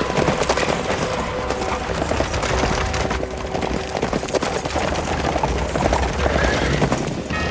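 Several horses galloping, their hooves clattering in a dense, steady rush over hard ground.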